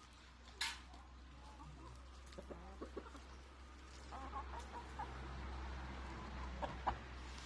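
Roosters clucking in short, scattered calls, one sharp louder call about half a second in, over a steady low hum.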